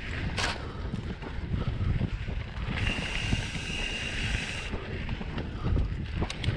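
Wind buffeting the camera microphone as a mountain bike rolls over sandy, gravelly trail, with tyre and frame rattle. A steady high buzz of the rear freehub ticking while coasting runs for about two seconds in the middle, and a couple of sharp clicks break through.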